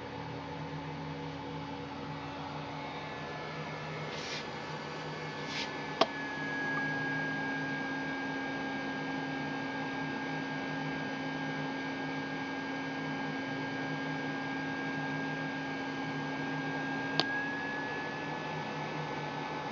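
Steady electrical hum and whir of a homemade incubator's PC power supply and fan, with a thin high whine. Two sharp clicks, about six seconds in and again near the end, fit its relays switching the heating bulbs on and off to hold temperature, and the hum's tone shifts at each click.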